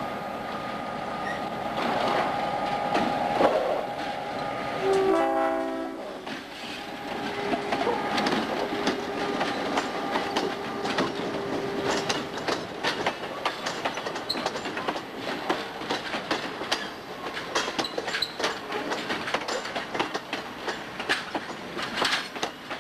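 Diesel locomotive's horn sounding as the train nears, with a loud blast about five seconds in. The passenger coaches then roll past with a rapid clickety-clack of wheels over the rail joints.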